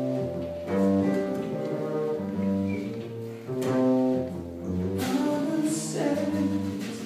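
Live small jazz band playing, with double bass, guitar and drums; held notes and chords, and a cymbal crash about five seconds in.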